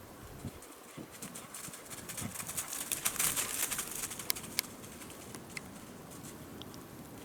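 Crackling and rustling of footsteps through dry leaf litter, thickest around three seconds in, then a few scattered clicks.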